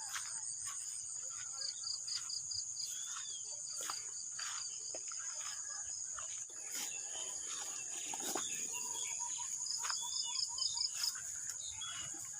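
Crickets and other insects trilling in a steady, high drone, with rapid pulsed chirps coming and going over it. A few short bird calls and scattered clicks and rustles sound through it.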